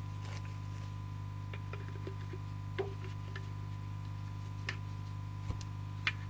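Scattered light clicks and taps of hard plastic being handled: the Stihl MS 170 chainsaw's detached fuel-tank housing turned over in gloved hands while the fuel filter is worked loose. Under it runs a steady low hum with a faint thin tone.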